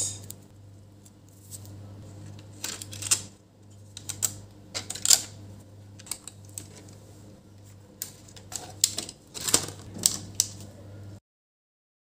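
Small plastic clicks and scrapes of laptop ribbon-cable connectors being unlatched and cables pulled from the motherboard, in scattered clusters over a steady low hum. The sound cuts off abruptly near the end.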